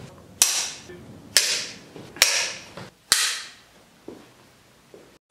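Film clapperboard snapped shut four times, each a sharp clap with a short ringing tail, about a second apart. A short, loud, high beep sounds at the very end.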